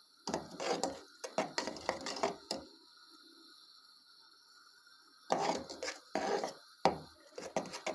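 A fork scraping and clattering round the bottom of an old small saucepan, stirring sugar while the last lumps melt. The strokes come quickly in two spells of about two seconds each, with a pause between.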